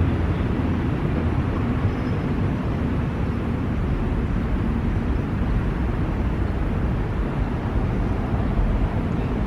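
Steady low rumble of distant city traffic, even and unbroken throughout.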